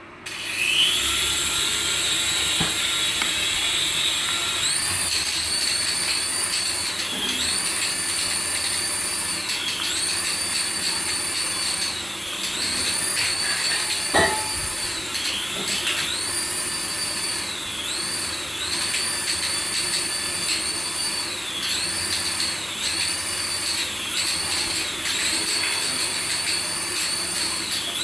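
Electronic engine sound effect from a battery toy's speaker: a whine that rises over the first second or so, then a high warbling tone that dips and returns about every two seconds. A single click about fourteen seconds in.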